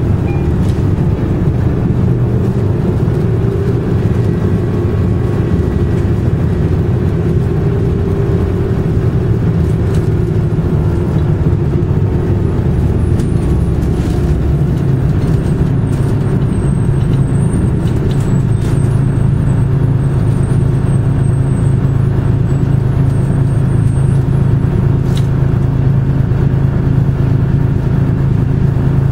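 The two-stroke Detroit Diesel 6V71N V6 of a 1982 GMC New Look "Fishbowl" transit bus running, heard from inside the cabin as a loud, steady drone. Its low hum grows steadier and stronger about halfway through.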